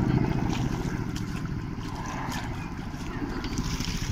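Helicopter flying over the sea, its rotors heard as a fast, steady beating. It eases off a little toward the middle and builds again near the end, with wind and light surf behind it.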